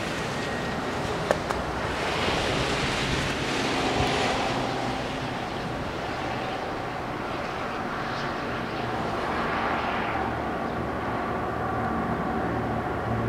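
Diesel locomotives of an approaching freight train, heard as a distant, steady engine drone with a low hum, under a rushing noise that swells twice.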